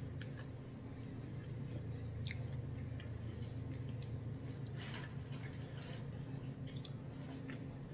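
Close-miked chewing and wet mouth sounds of someone eating shrimp, with scattered soft smacks and clicks, over a steady low hum.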